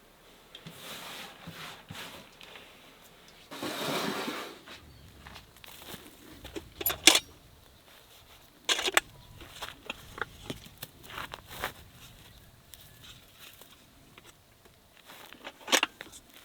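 Scattered sharp knocks and clicks of items being handled, with a brief rustling swell about four seconds in and the loudest clicks near the middle.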